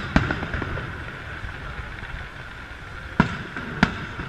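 Aerial firework shells bursting overhead: a sharp bang just after the start, then two more bangs about three and three and a half seconds in, with crackling in between.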